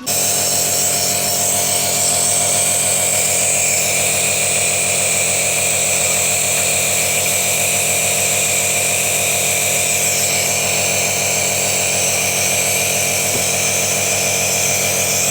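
A small electric motor-driven machine switches on abruptly and runs steadily with a loud buzzing hum and an airy hiss.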